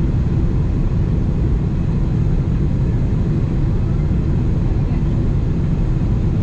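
Steady, deep rush of airflow and engine noise inside the cabin of a Boeing 777-300ER in flight, heard from a window seat beside its GE90-115B engine.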